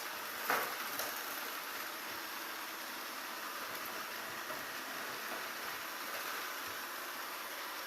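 Ariete Briciola 2711 robot vacuum cleaner running, a steady whirring hiss of its motor and brushes, with one brief knock about half a second in.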